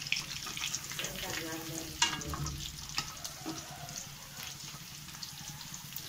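Chicken pakoda pieces deep-frying in hot oil in a steel kadai, sizzling and crackling steadily. A slotted spoon stirs them and knocks sharply against the pan about two seconds in.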